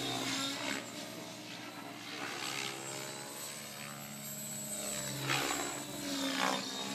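Align T-Rex 700E electric RC helicopter with a flybarless DFC rotor head in flight: the whirr of its main rotor blades and the whine of its electric motor. The pitch and loudness rise and fall as it manoeuvres, and it grows louder in the last two seconds.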